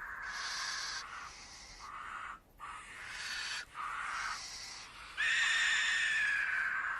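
Barn owl chicks giving long, rasping hissing calls, the snore-like begging hiss of young barn owls, repeated several times with short gaps. The longest hiss starts about five seconds in and lasts nearly two seconds.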